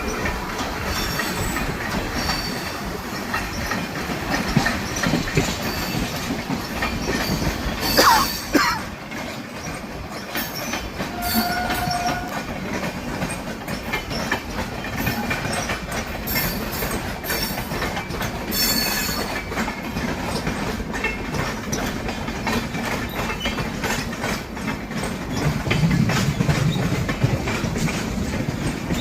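Train wheels running over the rails, a continuous rumble with clickety-clack over the rail joints. A brief, loud wheel squeal comes about 8 seconds in, and short squealing tones a few seconds later.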